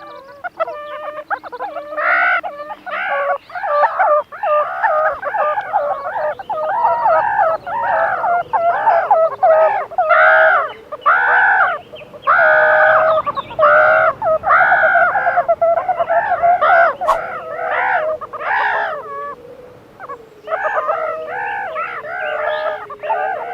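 Meerkat calls in a rapid series, about two calls a second. The run breaks off briefly near the end, then the calls resume.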